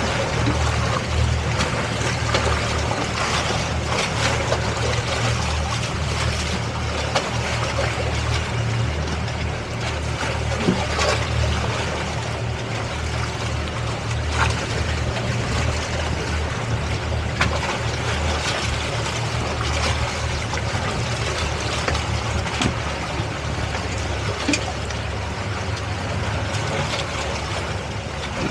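Towboat's engines running steadily under load while towing a boat lashed alongside, with water splashing and sloshing along the hulls and a few small clicks.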